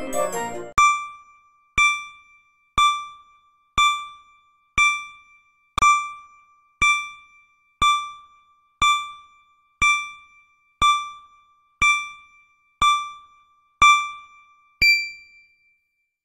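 Countdown timer beeping once a second: fifteen short electronic ding tones, each fading quickly. The last beep is pitched higher than the rest.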